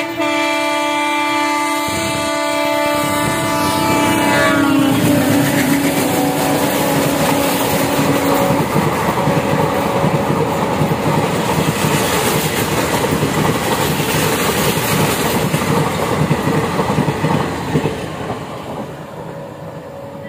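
An ALCO diesel locomotive passes at speed with its horn sounding. The horn drops in pitch and stops about four seconds in. Then the passenger coaches rush past with wheels clattering over the rail joints, fading as the train recedes near the end.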